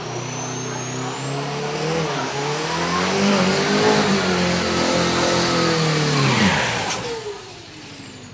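Turbocharged diesel drag-racing pickup with a mechanical inline injection pump doing a burnout: the engine is held at high revs with the rear tyres spinning, and a high whistle climbs steadily over the first few seconds. About six and a half seconds in, the engine note falls away.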